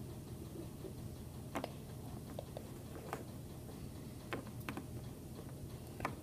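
Small plastic toy figure tapped and hopped by hand across a wooden tabletop: faint scattered clicks, about half a dozen, over a low steady room hum.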